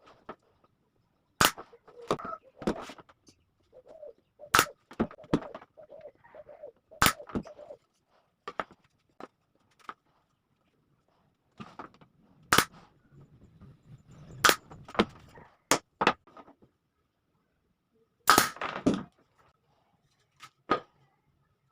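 Sharp single knocks on wood, irregular and a second or more apart, with quieter handling and scraping noises between them, from work on plywood pieces.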